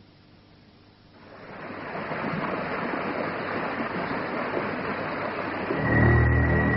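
Cartoon sound effect of a machine powering up: a rushing hiss swells in about a second in and holds, then a low hum and a steady high tone join near the end as the device's glowing screen lights up.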